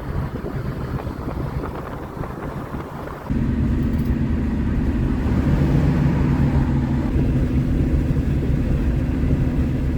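Car running, heard from inside the car: rough road and tyre noise at first, then about three seconds in an abrupt switch to a steady engine hum.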